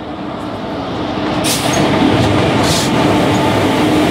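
Electric locomotive and its passenger coaches passing close alongside on the next track: a rumbling that grows louder as the locomotive draws level, with a steady hum and two short hisses about one and a half and two and a half seconds in.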